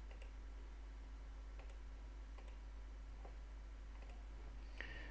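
A few faint, scattered clicks, about one every second, with a slightly sharper one near the end, over a steady low hum and room hiss.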